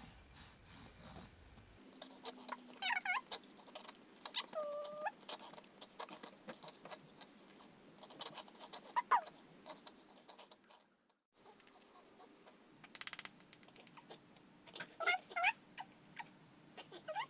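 A small terrier whining in short, high-pitched squeaks, some wavering and one held for about half a second, while a spoon clicks lightly against a plastic bowl.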